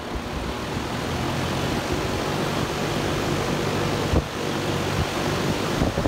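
Outdoor AC condenser fan, hand-started with a cable tie, running with a steady whoosh and motor hum that builds over the first second. It needs the push because the failed dual run capacitor can no longer start the fan motor. A single sharp knock comes about four seconds in.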